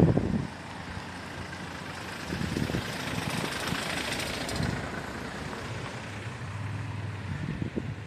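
Street traffic: a motor vehicle passing nearby, its tyre and engine noise swelling about midway and fading, with a low engine hum near the end.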